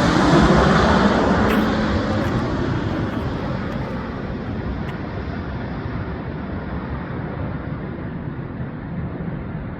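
Jet airliner moving away after passing, its engine noise fading steadily as the high hiss dies out first.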